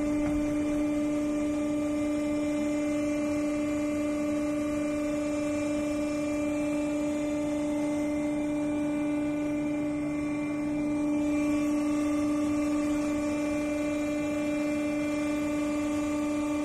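Kuangan ZWY-60/22L crawler mucking loader running while it digs, its power unit giving a loud, unchanging hum with one strong pitch and higher overtones.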